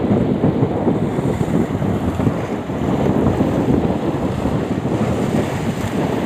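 Strong wind buffeting the microphone at sea, a loud steady low rushing noise over choppy water.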